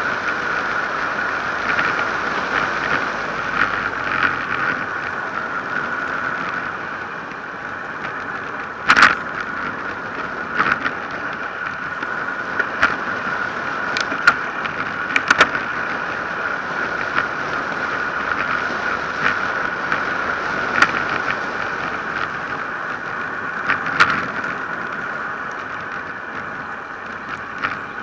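Road bike coasting fast downhill: steady rush of wind and tyres on asphalt, with a handful of sharp knocks as the bike jolts over bumps in the road.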